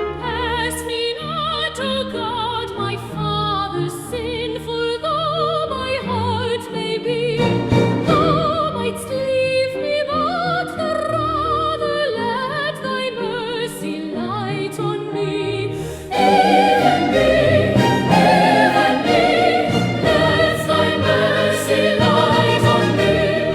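Sacred hymn music: sustained singing with strong vibrato over a bass and instrumental accompaniment, swelling into a louder, fuller passage about sixteen seconds in.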